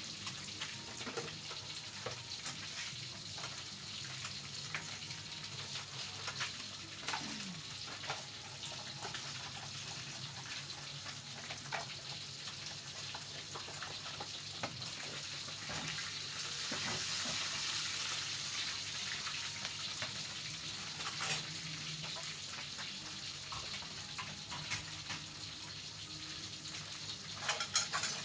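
Food sizzling and frying in a pan, with scattered clicks and scrapes of a utensil being stirred through it; the sizzle swells somewhat a little past the middle.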